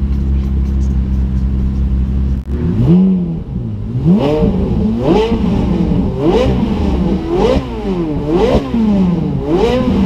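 Ferrari F430 Scuderia's V8 idling, then, from about two and a half seconds in, revved hard about once a second, each rev sweeping up in pitch and falling back.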